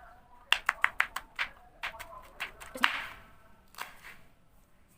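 Kitchen knife chopping spice ingredients on a cutting board: a quick run of sharp knocks, a short swish, then one more knock.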